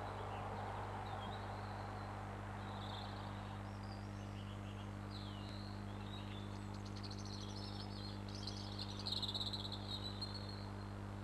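A steady low electrical hum with a hiss under it, and faint, high, scattered chirping calls over it that grow busier and a little louder in the second half.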